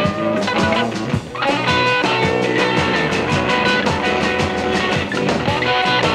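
Electric blues band playing an instrumental passage: electric slide guitar with gliding notes over a second electric guitar and drums.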